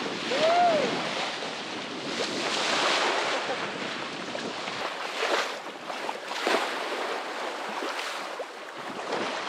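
Sea water sloshing and splashing against a sailboat's hull, with wind on the microphone. About half a second in there is a single short squeak that rises and then falls in pitch.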